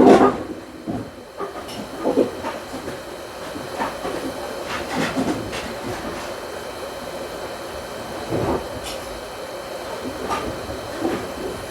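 Hot air rework gun blowing steadily onto a circuit board, a constant rushing hiss with a faint steady hum, heating the solder under a surface-mount chip to desolder it.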